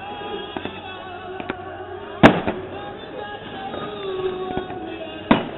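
Fireworks exploding: one loud bang about two seconds in, another near the end, and several smaller cracks, with music playing underneath.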